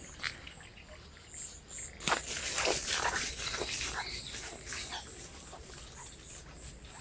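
Steady high trill of crickets or other insects, with a few short chirps. From about two seconds in comes a loud burst of dense, scratchy rustling strokes that fades out over about three seconds.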